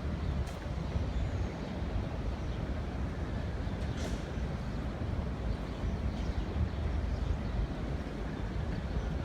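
Heavy fire truck diesel engine rumbling steadily at idle, with a single sharp click about four seconds in.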